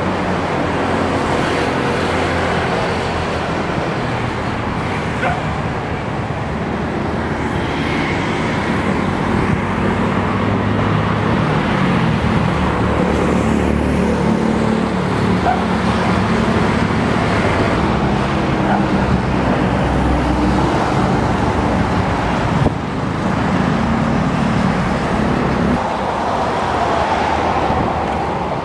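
Steady road traffic noise: a continuous wash of vehicle engines and tyres, with low engine hums that shift in pitch and fade out near the end.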